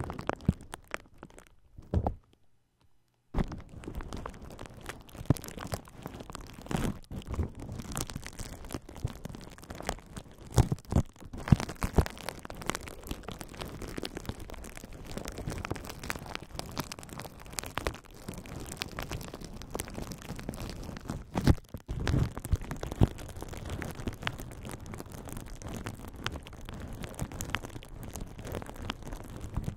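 A plastic bubble-wrap bag being squeezed and crinkled between the fingers, giving a dense crackling with occasional sharper snaps. It pauses briefly about two seconds in.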